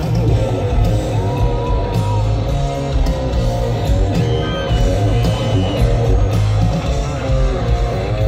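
Hard rock band playing live and loud through a festival PA, heard from among the crowd: electric guitars over bass and drums, with a lead guitar holding long notes about a second in and again, higher, about four seconds in.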